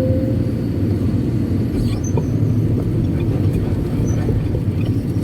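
Kobelco SK200-8 Super X excavator's diesel engine running steadily under work, with a thin whine fading out near the start and a few light knocks.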